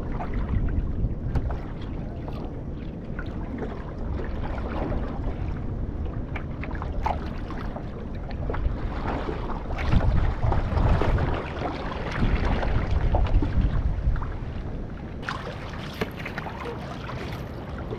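Water sloshing and splashing around a one-person outrigger canoe (OC1) hull as it is paddled, with paddle strokes throwing spray more sharply from about fifteen seconds in. Wind buffets the microphone throughout, in heavier gusts about ten to fourteen seconds in.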